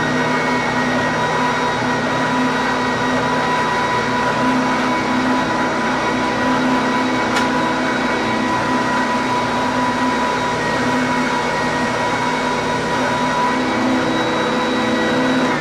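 WEN oscillating belt and spindle sander running steadily with no workpiece, its motor giving a constant hum and whine.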